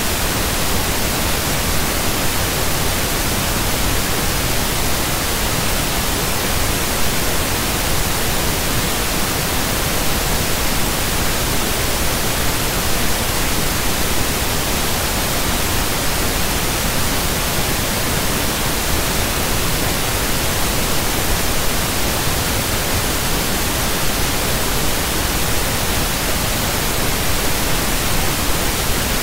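Steady loud hiss of static, even and unchanging throughout, with no other sound.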